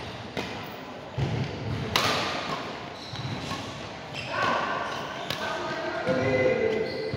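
Badminton play in a sports hall: sharp racket hits and footfall thumps echo a few times, over voices.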